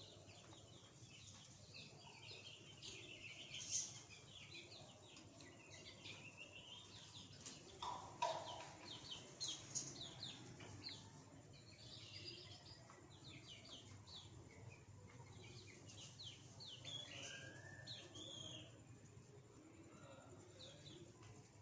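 Young chickens peeping: many short, high chirps overlapping throughout, with one louder, lower call about eight seconds in. A faint steady low hum lies underneath.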